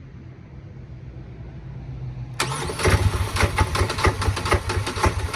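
Vehicle engine being cranked: a low hum, then about two seconds in a sudden loud, rapid, rhythmic chugging of the starter turning the engine over, from an engine that is hard to start.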